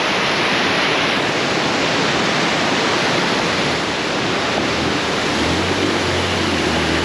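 Rushing river water: a loud, steady roar of flowing water. About five and a half seconds in, a low, steady motorcycle engine hum joins it.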